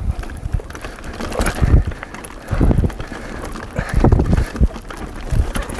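Mountain bike ridden up a climb of loose dirt: tyres on the soil and the bike clicking and rattling over bumps, with repeated buffets of wind noise on the microphone.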